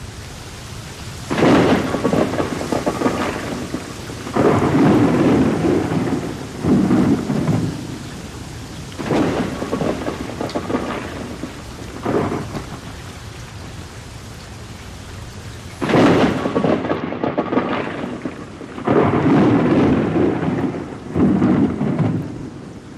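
Steady rain with rolls of thunder breaking in again and again, about eight times, each starting suddenly and rumbling for a second or a few.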